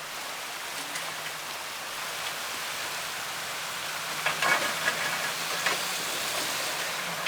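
Steady rush of water over the rock waterfall, with the Bronco rock crawler's engine running low underneath and a louder, crackly patch from about four to six seconds in.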